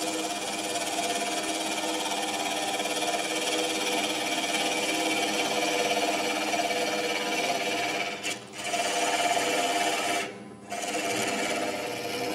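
Wood lathe running with a cedar of Lebanon cube spinning and a tool working the wood, with a rattle from the chuck, which had worked loose. The sound drops away briefly twice near the end.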